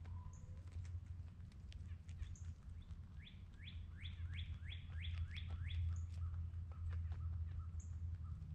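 A songbird singing a quick run of about eight repeated rising notes, about three a second, in the middle. Under it runs a low steady rumble, with scattered soft clicks throughout.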